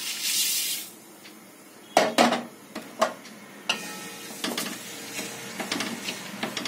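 Granulated sugar poured into water in a metal kadai with a short hiss, then a few sharp knocks and a wooden spatula stirring and scraping the wet sugar against the pan. The sugar is being dissolved in the water to make sugar syrup.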